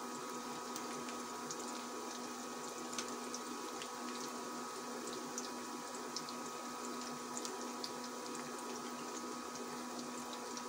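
Onions frying in hot cooking oil: a steady sizzling hiss with scattered small crackles, over a steady low hum.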